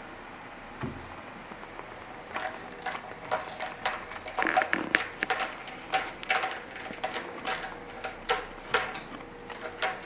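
A cat's claws scratching: a run of short, irregular rasping strokes starting about two seconds in, after one soft thump about a second in.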